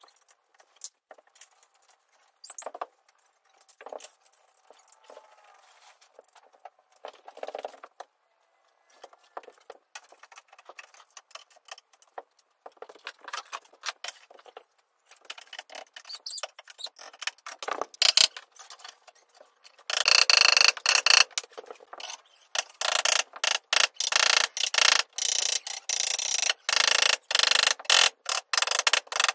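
Wooden cat-tree parts handled and set down with scattered light knocks and clicks. About twenty seconds in, a ratchet tool clicks rapidly and loudly as a fastener on the frame is tightened.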